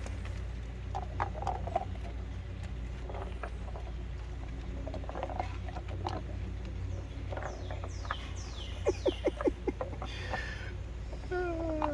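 Birds calling in quick high chirps that fall in pitch, over a steady low hum. A quick run of about five short taps comes near the end, then a brief falling whine.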